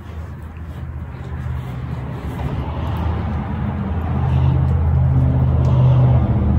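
Low, steady engine hum of a motor vehicle, growing louder over several seconds.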